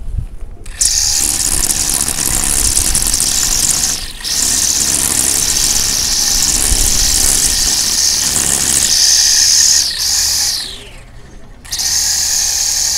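Battery-powered brush cutter's electric motor and nylon-line trimmer head spinning with a high-pitched whine, cutting dry grass. It starts about a second in and dips briefly twice. Near the end it winds down with a falling whine, then starts up again.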